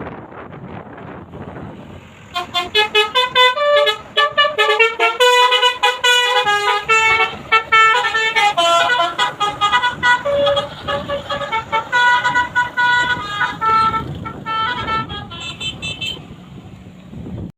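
A bus's Basuri telolet horn, a multi-tone musical air horn, playing a quick melody of many short notes. It starts about two seconds in and stops shortly before the end, over steady road and vehicle noise.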